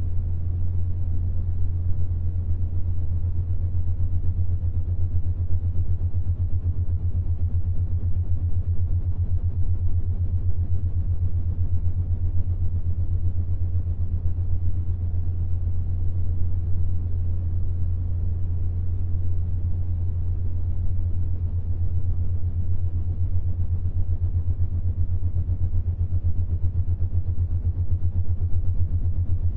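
Binaural-beat drone for the 7.83 Hz Schumann resonance: a steady low hum with a fast, even throb and a soft rumbling hiss beneath it.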